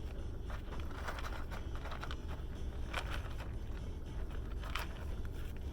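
Steady low rumble of an idling car heard from inside the cabin, with a few short, faint clicks and rustles.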